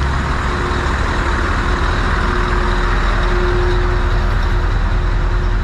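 Steady loud rumble of lorry diesel engines running among parked trucks on a ferry's vehicle deck, with a steady hum running through it.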